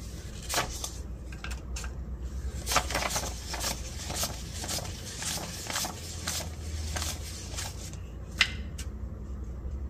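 Paper banknotes being handled: a continual run of crisp rustles and flicks as the bills are fanned out and sorted, with a sharper snap about three seconds in and another near the end. A low steady hum sits underneath.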